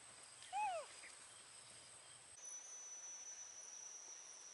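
A baby macaque gives one short call about half a second in, its pitch rising slightly then falling. Behind it a steady high-pitched insect drone runs on.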